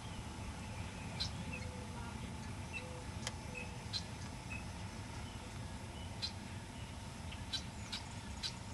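Outdoor field ambience: a low steady rumble of wind on the microphone, with a few faint, very short high chirps scattered through.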